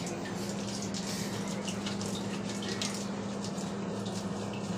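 Tap water running steadily in a small bathroom during a cat's bath, over a steady low hum, with small splashes and drips.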